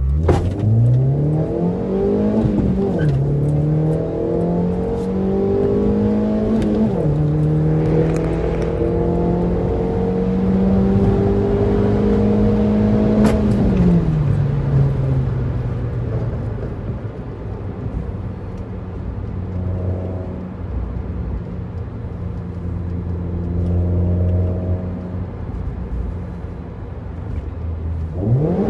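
Car engine heard from inside the cabin, accelerating hard through the gears. The pitch climbs, drops at gear changes about 3 and 7 seconds in, and climbs again to a peak. About 13 seconds in it falls off as the driver lifts, and the engine settles into a steady cruise before revving up again near the end.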